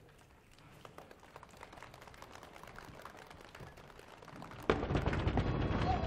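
Faint crackling hall noise, then about four and a half seconds in a sudden loud, noisy crash with a deep low end that carries on.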